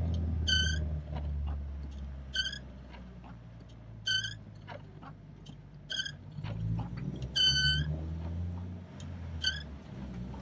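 A short, high-pitched squeak repeating about every two seconds, over a steady low hum.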